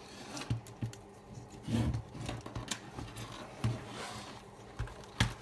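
Irregular light clicks and knocks from handling the bare laptop motherboard and its connected parts, with a sharp click near the end.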